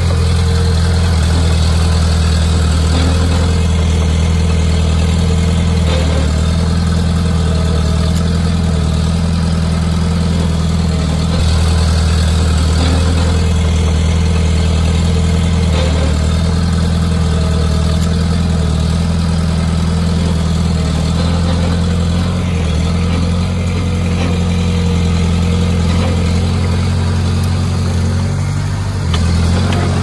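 Diesel engine of heavy earthmoving machinery running steadily with a deep, even drone, briefly louder near the end.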